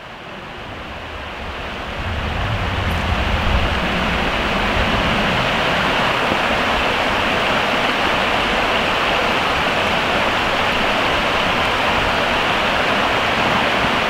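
Steady rush of a shallow mountain creek running over rocks, fading up over the first two seconds and then holding even.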